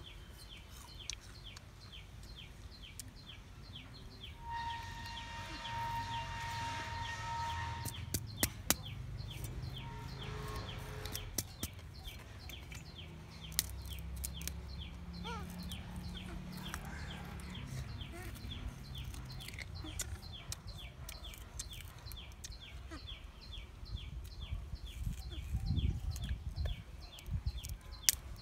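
Steady outdoor chirping, short high chirps about two or three a second, with scattered sharp clicks and snaps of a knife cutting a plant stalk. A long held call at one steady pitch sounds from about four to eight seconds in.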